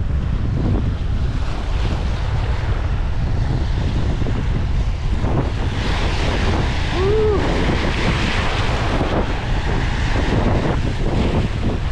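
Strong wind buffeting the microphone in a steady low rumble over a rushing hiss. About seven seconds in there is one short tone that rises and falls.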